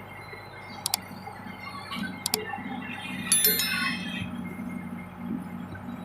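Case 580 backhoe loader's diesel engine running with a steady low hum. Over it come a few sharp metallic clinks and, about three seconds in, a louder ringing clank of metal striking metal.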